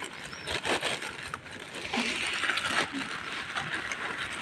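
A black plastic bag of dry cat food rustling and crinkling in irregular bursts as a hand rummages in it.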